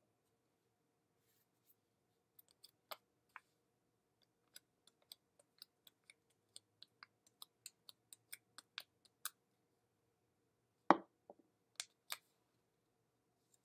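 Faint, irregular light clicks and ticks, about two a second, from hands handling paper cutouts and a small craft tube, then one much louder knock about eleven seconds in, followed by two sharp clicks.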